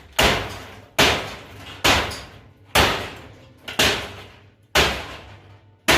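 Hammer blows on a small countertop oven being smashed apart: seven hard strikes about once a second, each ringing briefly as it fades.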